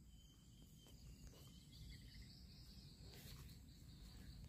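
Faint outdoor ambience of insects trilling steadily in high, even tones.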